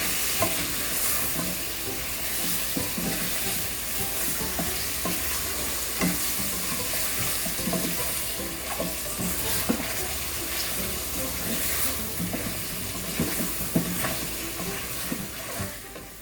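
Chicken pieces with onions and spice powders frying in oil, sizzling steadily, while a spoon stirs them with irregular scrapes and knocks against the pan.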